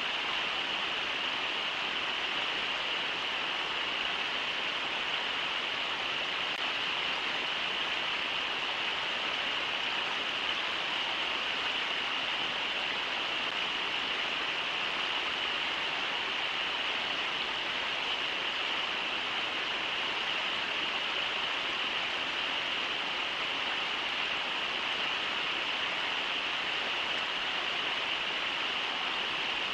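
Brooks River rushing steadily over shallow riffles, a constant even hiss of running water.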